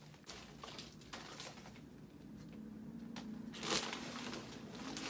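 Plastic trash-bag liner and packaging rustling and crinkling as gloved hands rummage through garbage in a bin, with a louder crinkle about three and a half seconds in.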